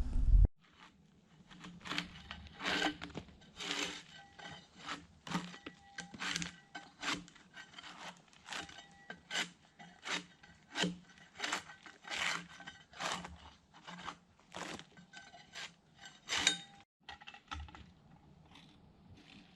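Repeated short rasping strokes of a hand tool on wood, about one or more a second at uneven spacing, with a brief pause near the end before fainter strokes.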